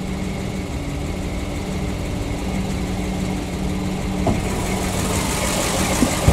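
PAZ-672 bus's V8 engine idling steadily, with a hiss that grows louder in the second half and a couple of light clicks.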